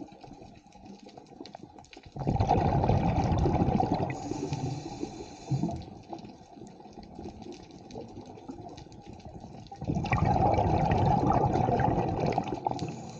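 Scuba diver's regulator exhaust bubbles heard underwater: two long exhalations of bubbling, about 2 seconds in and again about 10 seconds in, with quieter crackling in between.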